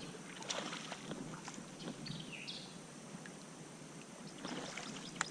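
Faint water and hull sounds from a fishing kayak, with a few light clicks and one short high chirp falling in pitch a little after two seconds in.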